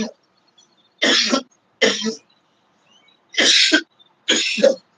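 A man coughing with his fist at his mouth: four short, harsh coughs, coming roughly in two pairs about a second apart.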